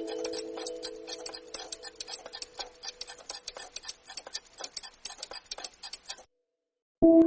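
The end of a background music track: held notes fade away while a rapid clock-like ticking carries on alone, then cuts off to silence. A new music track begins near the end.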